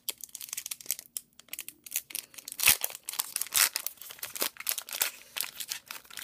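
Baseball card pack wrappers being torn open and crinkled, with cards handled, a run of sharp crackles and rips, loudest a little under three seconds in.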